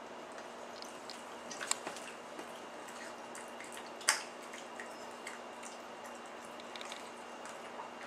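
Pug licking and mouthing a piece of watermelon: scattered short, wet smacks and clicks, the loudest about four seconds in, over a faint steady hum.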